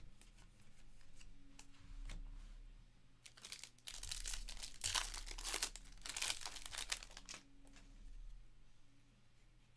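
A 2022 Bowman Draft baseball card pack's wrapper being crinkled and torn open by hand, in a run of loud bursts from about three to seven seconds in, with softer handling of cards around them.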